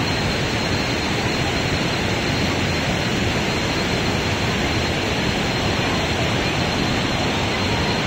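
Steady rushing noise of a large waterfall, even and unbroken.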